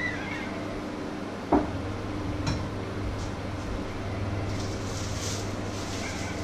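Kitchen handling sounds over a steady low hum: a sharp knock about one and a half seconds in and a lighter knock a second later, then rustling as a plastic mesh produce bag is handled near the end.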